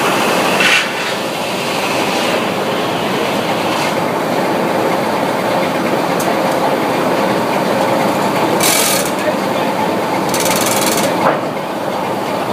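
Sawmill machinery running with a loud, steady mechanical din and a faint steady hum, broken by two short hissing bursts in the second half.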